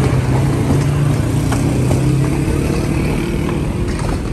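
Street traffic noise with a motor vehicle's engine hum close by, which fades away a little over two seconds in, and a few light clicks.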